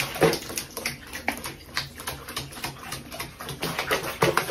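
Wet cat in a soapy sink bath giving short cries, with water dripping and splashing around it.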